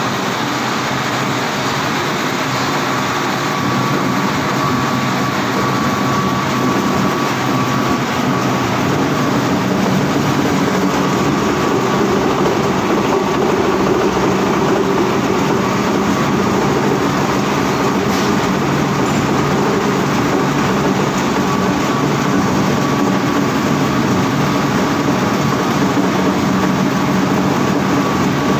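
Plastic agglomerator running, its rotor blades spinning in the drum and churning shredded HDPE fishing-net scrap: a loud, steady mechanical rumble with a steady hum and a faint high whine.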